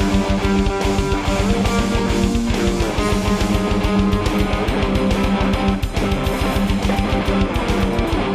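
Guitar and drum kit improvising a rock jam together: held, distorted-sounding guitar notes with occasional slides in pitch over a steady drum beat.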